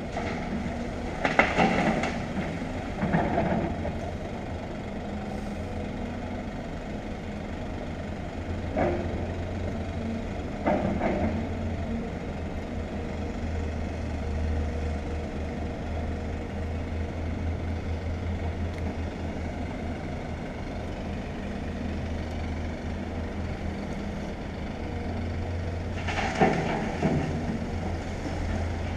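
Excavator's diesel engine running steadily as a low rumble, with several loud clanks from the machine at work: two near the start, two about ten seconds in, and one near the end.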